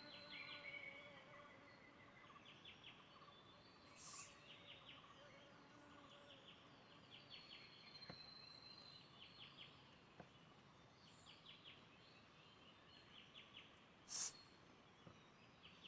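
Faint outdoor bird calls: short, rapid trilled chips repeated every second or two. Two brief high hisses break in, about four seconds in and, louder, about fourteen seconds in.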